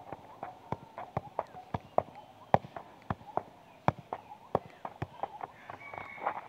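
A football being juggled and kicked: a quick, irregular run of sharp thuds, a few a second, as the ball is struck by foot and bounces on hard dirt.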